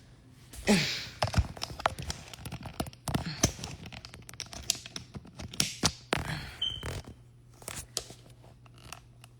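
Handling noise: a quick run of knocks, clicks and rustling for about six seconds, then it dies down near the end.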